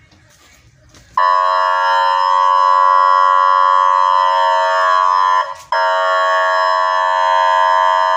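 Electronic warning alarm sounding a loud, steady tone that starts about a second in, cuts out briefly about five and a half seconds in, then comes back on.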